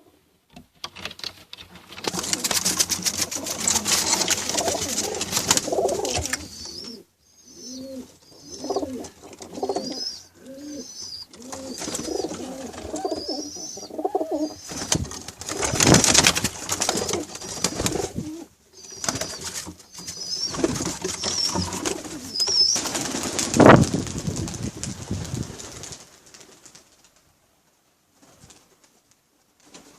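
Pigeons cooing in repeated low calls, with high chirps over them and a few loud rustling bursts; the sounds stop a few seconds before the end.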